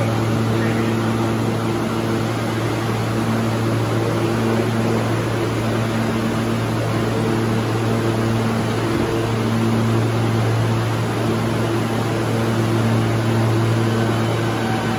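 R160 subway train standing with its doors open, its air-conditioning and onboard equipment giving a steady low hum with a hiss over it.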